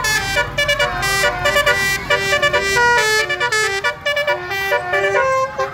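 Bus telolet horn, a multi-note musical air horn, playing a quick melody of stepped tones. A low engine rumble runs under it for the first half.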